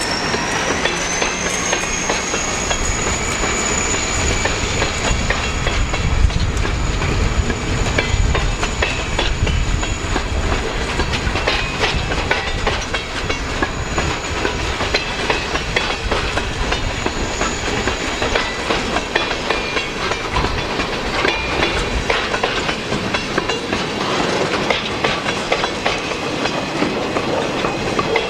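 Freight cars of a logging train rolling past at close range, a steady rumble with wheels clicking over the rail joints and a thin high squeal that fades out past the middle.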